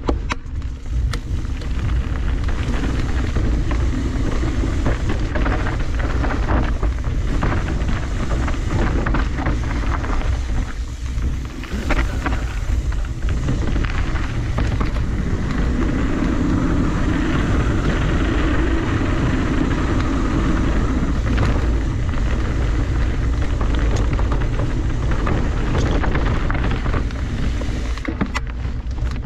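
Mountain bike ridden along a rocky dirt singletrack: knobby tyres crunching over gravel and stones and the bike rattling over bumps, under heavy wind rumble on the camera's microphone.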